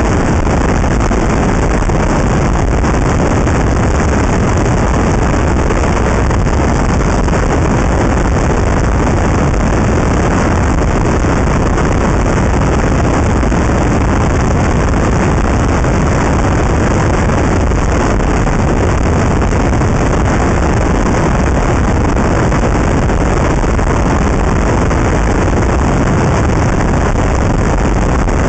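Wind buffeting the microphone of a camera clamped to the outside of a moving car: a steady, loud rush with road noise underneath.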